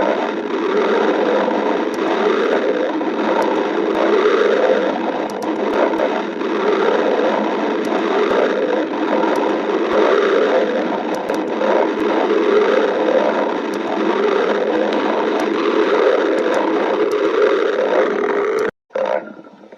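Stomach growling: continuous gurgling and rumbling from a person's belly, breaking off abruptly for a moment near the end.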